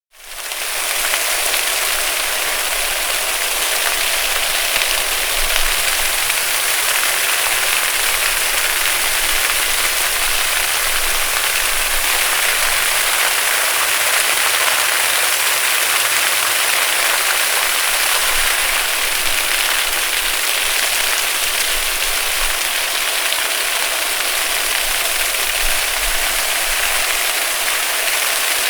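Water fountain splashing steadily: a dense, even hiss of falling water. It swells up out of silence within the first moment, then holds.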